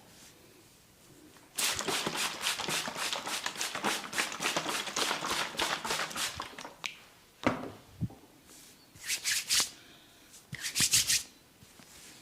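Fingers scratching and working quickly through hair on a scalp, a dense run of crackling strokes starting about a second and a half in. This is followed by two sharp snaps and two short bursts of rubbing near the end.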